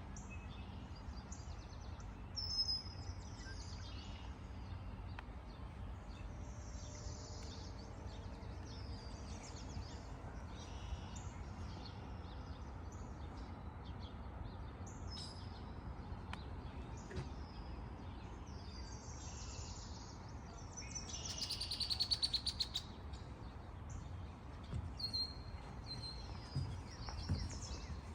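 Birds chirping and calling in many short, high calls one after another, with a louder rapid chattering call about three-quarters of the way through. A steady low rumble of background noise lies beneath.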